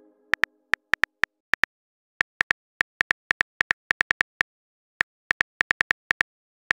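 Phone keyboard typing clicks: an irregular run of short, identical ticks in quick groups with brief pauses between them, the typing sound effect of a message being written.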